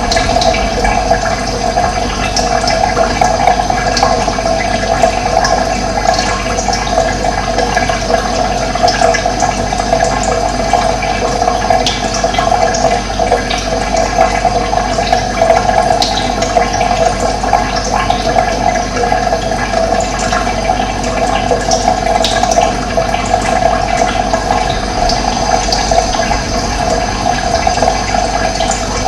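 Running water rushing and gurgling steadily, with occasional short high bird chirps over it.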